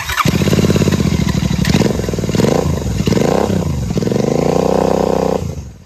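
Royal Enfield Continental GT650's 648 cc parallel-twin engine running loud with the exhaust removed, blipped by hand so the revs dip and rise a couple of times in the middle. The sound drops to a much lower level near the end.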